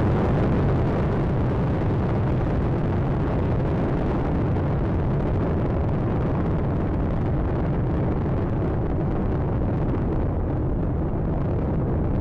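Space Shuttle Atlantis climbing after liftoff: the steady, loud rocket noise of its three main engines and solid rocket boosters, heaviest in the low end. The upper hiss thins slightly near the end.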